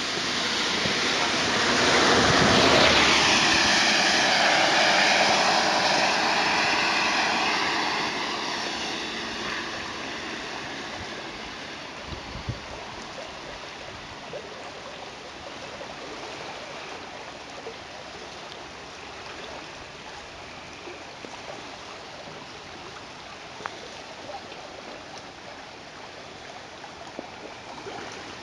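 Muddy floodwater rushing steadily through a swollen creek. In the first several seconds a vehicle passes on the wet road, its tyre hiss swelling and then fading away.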